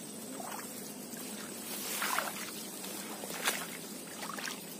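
Footsteps pushing through tall wet marsh grass, with the stems swishing and rustling against the body; a few louder swishes come about two and three and a half seconds in.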